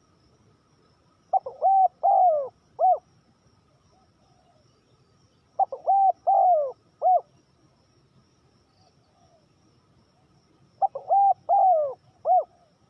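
Spotted dove cooing: three song phrases about four to five seconds apart, each a quick run of coos ending in one separate coo.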